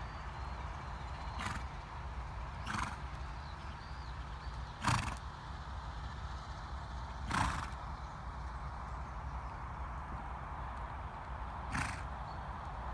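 A 13.1hh piebald cob mare, ridden at trot, blows out through her nostrils five times at uneven intervals. The loudest two come about five and seven and a half seconds in, over a steady low rumble.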